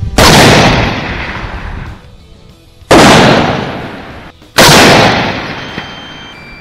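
Three rifle shots from a 6.5 Grendel AR-type rifle, the last two about a second and a half apart, each very loud and dying away in a long echo.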